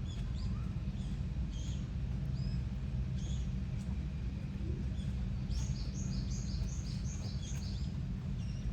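Small birds chirping, with scattered single chirps and then a quick run of about eight chirps a little past the middle, over a steady low background rumble.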